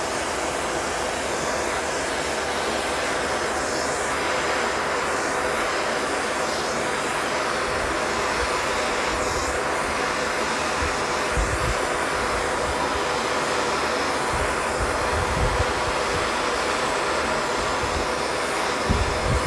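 Handheld gas torch burning with a steady hiss while it heats lead body solder on a car body panel. A few dull low bumps come in over the second half.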